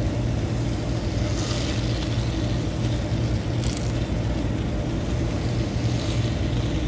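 Steady low machinery hum, with short hisses of hose-fed foaming coil cleaner sprayed from a wand onto an aluminium-finned condenser coil, about one and a half and three and a half seconds in.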